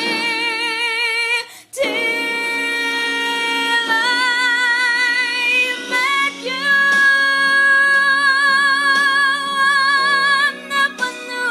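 A woman's solo singing voice belting a ballad with wide vibrato. There is a short break about two seconds in, then a long high note is held from about six seconds to ten and a half.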